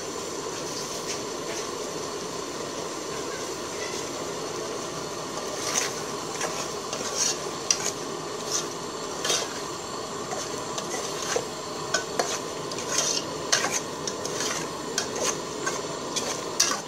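A ladle stirring curry in an aluminium pot, scraping and clinking against the pot's sides. The stirring starts about six seconds in, over a steady hiss.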